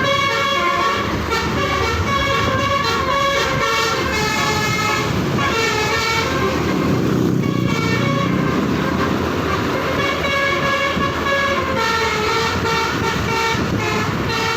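Indonesian 'telolet' bus horn, a multi-tone musical horn, playing a quick tune of changing notes again and again. The bus engine runs underneath.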